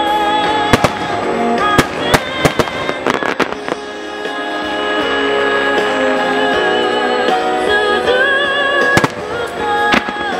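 Firework shells bursting with sharp bangs during a music starmine, several in quick succession in the first few seconds and more near the end, over a song with a singing voice that the display is fired to.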